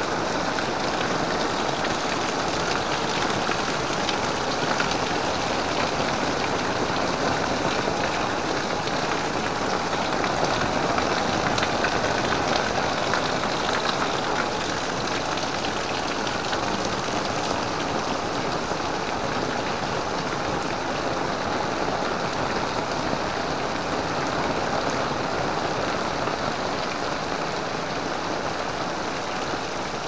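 Heavy rain falling steadily, a dense hiss of drops hitting an umbrella and the wet ground around it.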